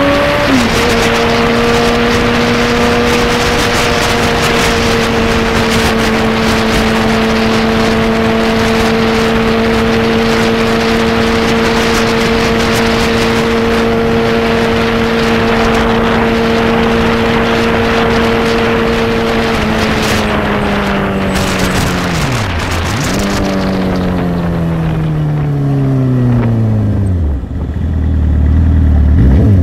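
Motorcycle engine pulling up through a gear change just under a second in, then running at a steady pitch with loud wind rush. From about two-thirds of the way through the engine pitch falls as the bike slows, with a brief dip and recovery. The wind dies down and the engine drops to a low idle near the end, then revs up again at the very end.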